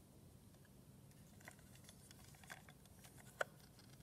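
Faint handling noise from a plastic Buzz Lightyear alarm clock turned over in the hands: a few small clicks and taps, with one sharper click about three and a half seconds in.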